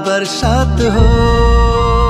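Nepali song music: a melody that bends and glides, then settles about a second in on a long held note, over a steady bass line.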